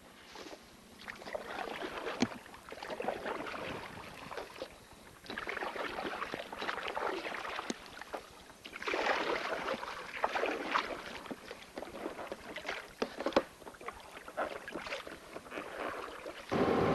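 Water splashing and sloshing against a small boat in irregular bursts. Near the end, an outboard motor starts up suddenly and runs steadily, louder than the water.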